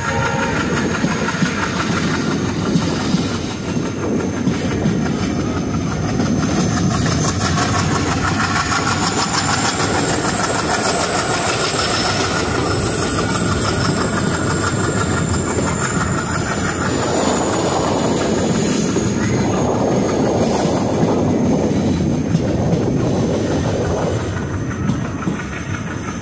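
Kollam–Chennai Egmore Express running, heard from on board: a steady rumble of the coaches with wheels clattering over the rail joints. A thin high whine rises and then falls through the middle.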